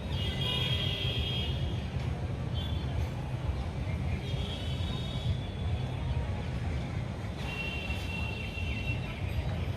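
Steady low background rumble with several short spells of high-pitched chirping bird calls.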